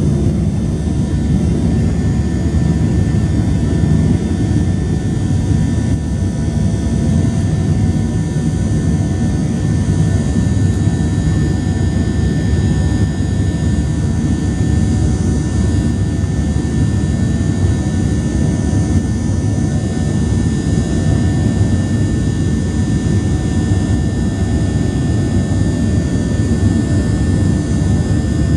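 Boeing 737-700's CFM56-7B jet engines at climb power, heard from inside the cabin during the initial climb just after takeoff: a steady, loud rumble with thin whining tones above it.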